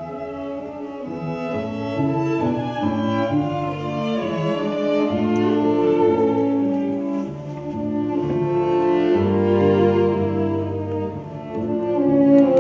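String quartet of two violins, viola and cello playing a classical piece live, with long bowed notes swelling and fading. The music drops briefly about eleven seconds in, then comes back louder.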